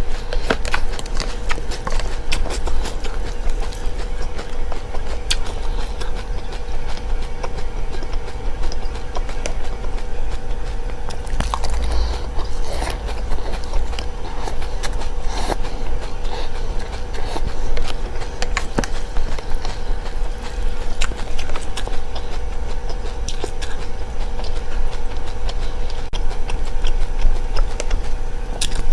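Close-up chewing and crunching of seeds: a dense run of small irregular crackling clicks over a steady hum and low rumble.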